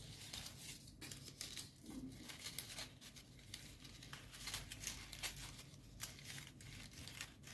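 Folded paper origami units rustling and crinkling faintly as they are handled and slotted into one another, with many small irregular crackles.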